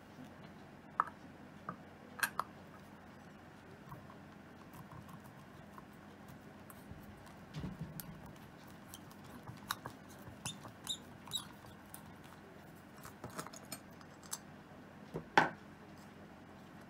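Scattered small metal clicks and scrapes as a chrome motorcycle mirror housing is taken apart at its centre pivot with a thin tool, with one sharper click near the end.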